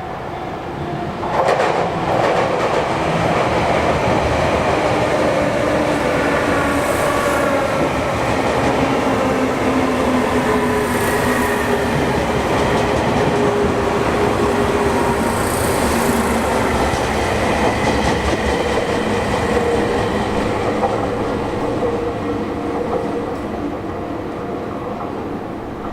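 Sotetsu Line electric train passing close by. It grows loud about a second and a half in and holds steady for some twenty seconds, with whining tones that shift slowly in pitch over the rumble of the wheels, then eases off near the end.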